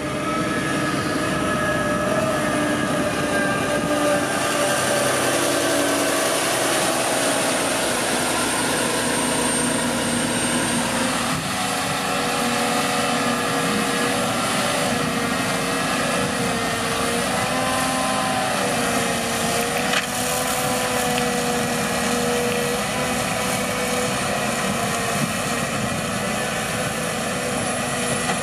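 Holmer T4-30 self-propelled sugar beet harvester running with a steady, loud machine drone; its engine note shifts about midway and wavers up and down for several seconds.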